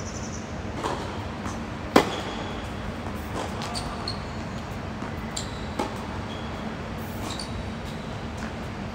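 A tennis rally on a hard court: a tennis ball struck by rackets several times, with the loudest hit, close by, about two seconds in, and sharper knocks a few seconds apart after it. Short high squeaks of tennis shoes on the court come between the hits.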